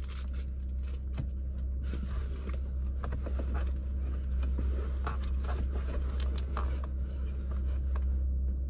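Steady low rumble of a car idling, heard inside the cabin, with scattered rustling and scraping as someone shifts about.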